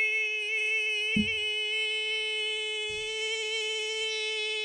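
A man's voice holding one long, steady, high nasal note: one of the silly sounds the book makes its reader perform.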